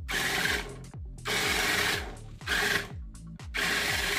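Small electric drive motors and plastic tracks of a Sillbird Wallrobot building-block robot whirring in short bursts, about four times, as it is driven and turned by remote app control.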